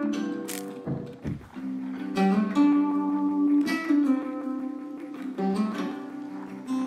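Instrumental background music, pitched notes changing every second or two.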